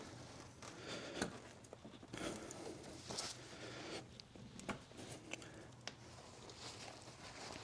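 Faint handling noises: scattered light clicks and soft rubbing and rustling of parts being handled, with a steady faint low hum beneath.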